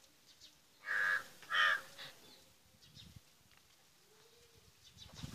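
Two short, harsh animal calls about half a second apart, around a second in.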